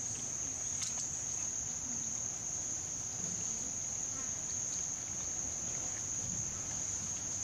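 Insects droning: a steady, high-pitched shrill tone held without a break.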